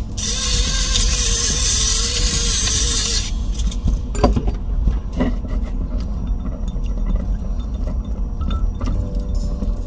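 Pepper grinder grinding over the bowl for about three seconds, a steady gritty hiss. After it, a few light clinks and scrapes of tongs tossing chicken wings in a glass mixing bowl.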